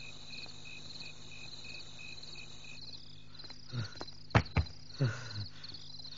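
Night-time crickets chirping steadily, one of them in slower pulses about three a second that stop about halfway. In the second half come a few knocks and dull thuds.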